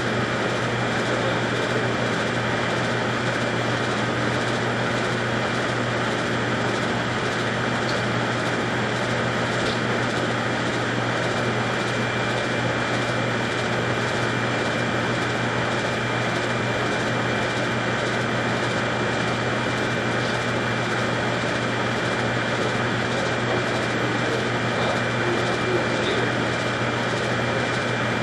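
Steady machine hum with a thin, constant high whine over it, unchanging throughout.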